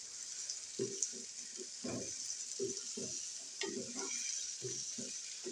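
Wooden spatula stirring and scraping parboiled potato chunks around a non-stick wok in quick repeated strokes, about two or three a second, over a steady sizzle of the oil and masala frying.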